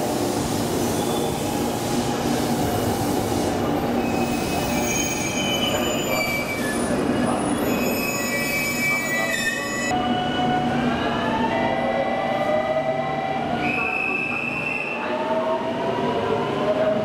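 JR Kyushu 813 series electric train pulling into the platform and braking, with wheel squeal and several steady tones. After a cut about ten seconds in, the train pulls away, its inverter-driven traction motors whining upward in pitch as it accelerates.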